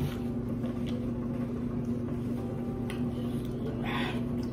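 Steady low electrical hum from a household appliance, with a few faint clicks of chewing and a short crunchy rustle about four seconds in.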